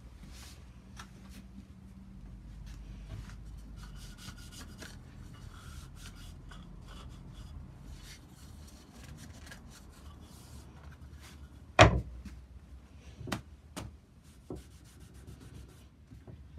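A cloth rag rubbing over a wooden kitchen roll stand, wiping down its finish with a steady soft scuffing. About twelve seconds in there is one sharp knock, followed by a few lighter knocks.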